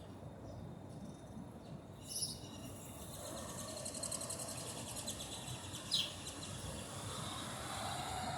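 Birds calling over steady outdoor background noise: a short high call about two seconds in, a fast high rattling trill for several seconds, and a sharp falling call about six seconds in.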